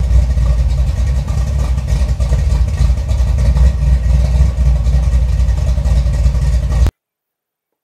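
A car engine running loud and steady with a deep rumble, cutting off abruptly near the end.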